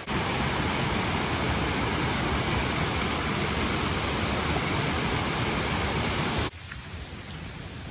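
Mountain stream rushing over rocks in small cascades, a loud steady rushing sound. It cuts off suddenly about six and a half seconds in to a much quieter steady hiss.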